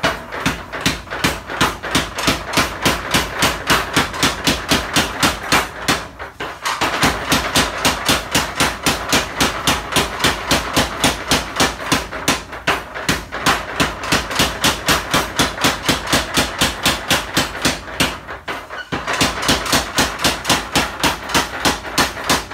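Mechanical power hammer with a belt and flywheel drive, striking a red-hot steel billet on the anvil in rapid, even blows, several a second, as steel for a Japanese sword is forged. The hammering pauses briefly twice, about six seconds in and again about eighteen seconds in.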